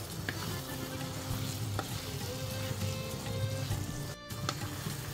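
Beef dendeng frying in a thick soy-and-spice paste in a pan, sizzling steadily as it is stirred, with a few light clicks. The sound drops out briefly about four seconds in.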